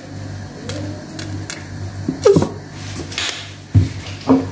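Plastic squeeze bottle of barbecue sauce being squeezed into a stainless steel bowl, with a short squelch and a sputtering burst partway through, then two knocks near the end, over a steady low hum.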